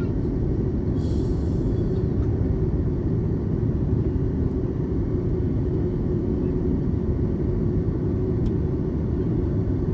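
Steady low rumble of an Airbus A330's engines and airflow, heard from inside the passenger cabin.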